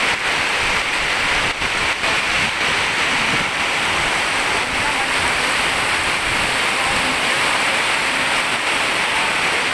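Heavy storm rain pouring down steadily, a dense, even hiss.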